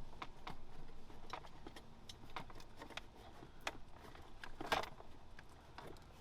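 Scattered light clicks and rustles of wiring and zip ties being handled and fastened inside a car's dashboard, with one louder scrape about three quarters of the way in.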